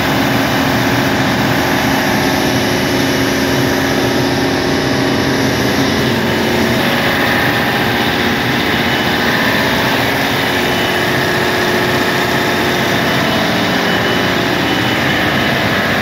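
Loud, steady drone of running diesel machinery in a ship's engine room: a dense rumble with several steady tones over it, unchanging throughout.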